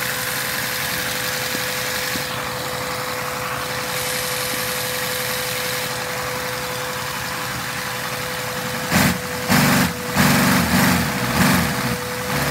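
Steady hum and hiss of the vacuum suction that drives a Lego vacuum engine, with a constant whine. About nine seconds in, a run of loud, low, uneven pulses starts.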